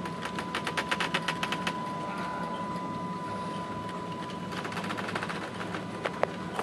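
Two runs of rapid mechanical clicking, about ten clicks a second, over a steady low hum of ship machinery on the bridge. A thin steady high tone fades out about two and a half seconds in.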